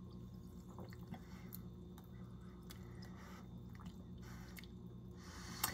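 Faint sipping and swallowing of soda from a glass, with small wet mouth clicks, over a steady low hum.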